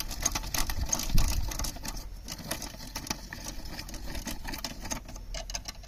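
Hand-cranked rotary coconut grater shredding the flesh of a half coconut: a fast, steady run of scratchy clicks as the toothed blade turns against the shell.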